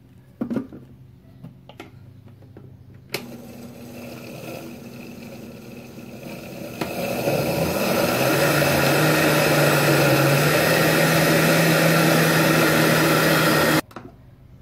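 Countertop electric blender mixing a runny cake batter of milk, eggs, oil and flour: it starts about three seconds in, grows louder and settles into a steady run, then switches off suddenly near the end. Before it starts there are a few light clicks and knocks as the jar is set on the base.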